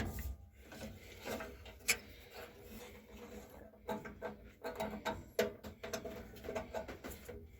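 Faint scattered clicks, light knocks and rubbing from hands working on a furnace, as a part or cover is fitted back on.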